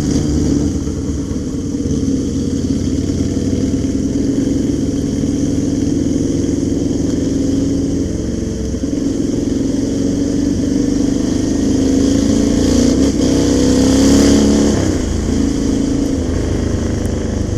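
Motorcycle engines running steadily at low revs in street traffic, with a few small rises and falls in engine speed partway through.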